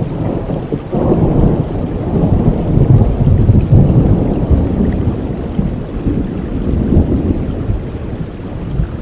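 Steady rain falling, with a long low rumble of thunder that swells about a second in and slowly fades away over several seconds.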